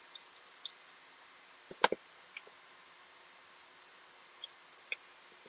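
Faint small clicks and ticks from a precision screwdriver and hands handling a PNY A2000 graphics card and its metal I/O bracket, with one sharper knock about two seconds in.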